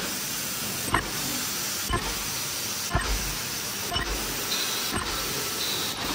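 Stand-up pouch bag-making machine running: a steady hiss with a sharp knock about once a second as the machine cycles.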